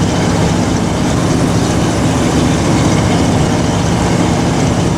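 RV engine running steadily under load with road noise, heard from inside the cab as it climbs a mountain road at low speed.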